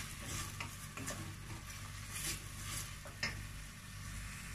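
Chopped onions sautéing in butter and oil in a stainless steel pot: a soft sizzle with a few short scraping strokes of a wooden spoon, and a sharp tap a little after three seconds, over a low steady hum.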